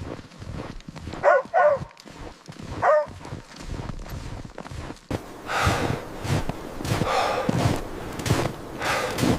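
A canine barking in three short yelps, followed from about halfway through by a run of rhythmic crunching thuds, about two a second.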